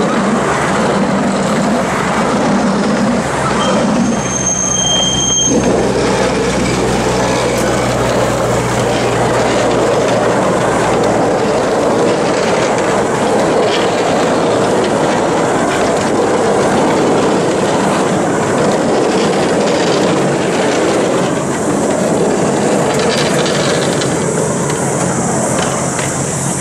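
Miniature ride-on railway train rolling slowly past, its steel wheels rumbling steadily on the narrow-gauge track. A brief high-pitched wheel squeal comes about four seconds in.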